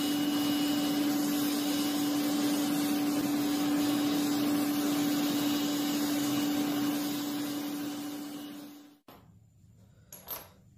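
Electric air blower feeding a homemade forge, running steadily with a low hum; the sound fades out about seven seconds in. Just after ten seconds there is a single light knock.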